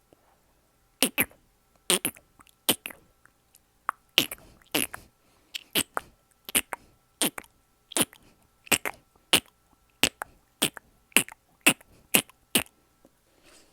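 A person making mouth-click sound effects: about a second in, a run of some twenty sharp clicks begins, coming roughly one and a half per second, slightly uneven.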